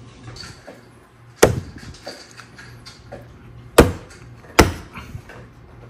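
Sharp plastic clicks and knocks as an EcoFlow Delta Pro Ultra battery-interconnect cable plug is pushed and seated into a battery's port. There are three clicks: one about a second and a half in, then two close together near the end.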